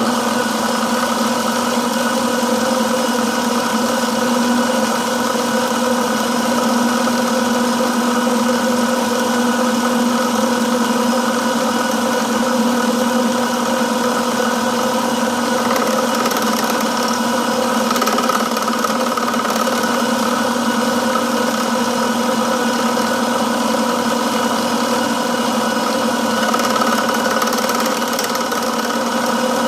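Milling machine motor switching on and running steadily, with a constant hum made of several steady tones.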